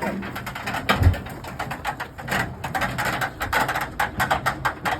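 Wrecked washing machine running, with rapid irregular clattering and clicking and a low thump about a second in.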